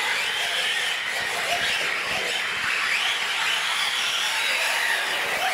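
Four radio-controlled UTVs racing, their electric motors whining, the pitch rising and falling over and over as the throttles are worked.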